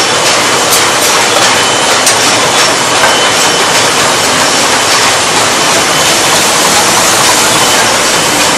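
Paper cup forming machine running: a loud, steady mechanical clatter with a few faint clicks.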